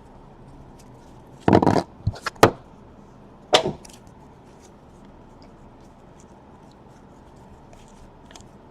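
Trading cards being handled, making short scrapes and taps: a quick cluster about a second and a half to two and a half seconds in, and one more about three and a half seconds in.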